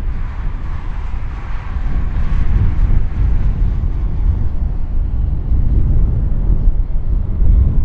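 Jet engines of a landing Airbus A350-900 airliner (Rolls-Royce Trent XWB turbofans): a deep rumble with a rushing hiss that is strongest in the first few seconds.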